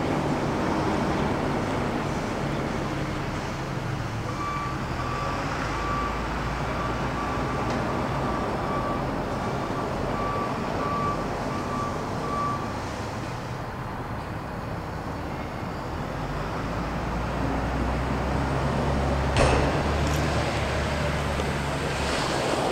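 International DT466 diesel engine of a 2006 International 4400 water truck running steadily, growing louder in the second half. A backup alarm beeps repeatedly for several seconds in the first half.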